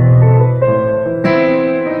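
Electric piano being played in chords: a low chord held, then a new chord struck a little past halfway through.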